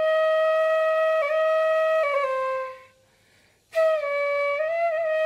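Background music: a solo flute playing long held notes with small steps in pitch. It fades out a little over two seconds in, stops for about a second, then comes back with a new phrase.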